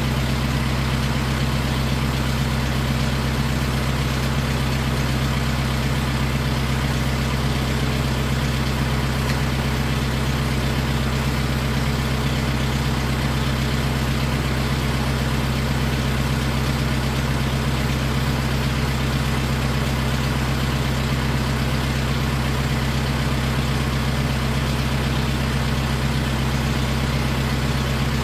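1966 Massey Ferguson 165 tractor engine idling steadily and evenly, running again after standing unused for 14 years and being jump-started with cables.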